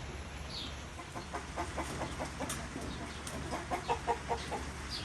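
Chickens clucking, in two runs of quick, short clucks, one about a second in and another near the four-second mark.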